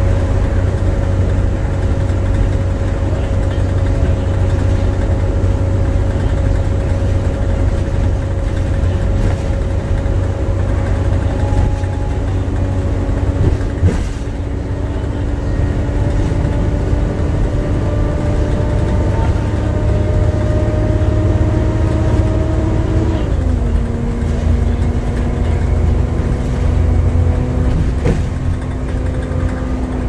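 Volvo B7TL double-decker bus's diesel engine and driveline heard from inside the cabin while under way, with the hoover-like whine climbing slowly in pitch over a low rumble. The pitch drops sharply about 23 seconds in and again right at the end, as the automatic gearbox shifts up.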